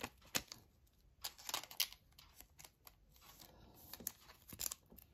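Trading card slid into a soft plastic penny sleeve: faint crinkling of the thin plastic with irregular light ticks and taps, a cluster of sharper ticks about a second and a half in.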